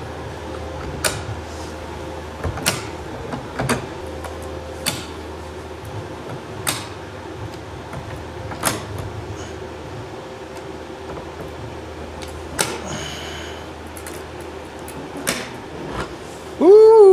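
Hand-cranked cable winch being ratcheted under load: a sharp click every one to two seconds as it tensions a 3D-printed nylon carbon-fibre carabiner in a pull test. The clicks run over a steady low hum.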